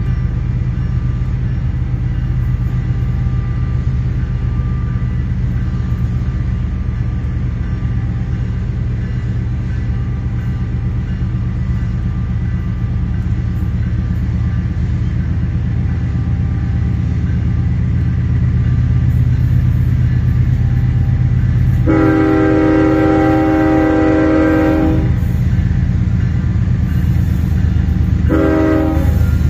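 Ferromex diesel-electric locomotive's engine running with a steady low drone that grows slightly louder past the middle as the train gets under way again. Its multi-note air horn sounds one blast of about three seconds, then a second, shorter blast near the end.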